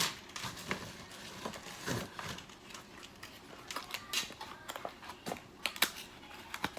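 Irregular small clicks, taps and light rustling as 8-foot LED tube lights and their plastic connector parts are handled, with a sharper click a little before the end.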